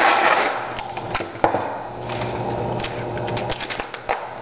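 Packing tape pulled off a handheld tape gun dispenser with a short rasping rip, followed by a few sharp clicks and taps as the tape is handled and pressed onto clear plastic.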